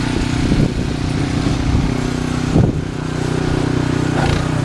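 An engine running steadily at a constant drone.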